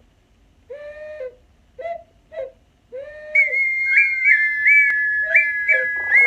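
Pre-Hispanic whistles blown to imitate jungle bird calls: a few short, low whistled notes, then from about three seconds in a higher whistle held on a steady pitch with quick repeated upward flicks, the low notes returning underneath. A steady hiss joins near the end.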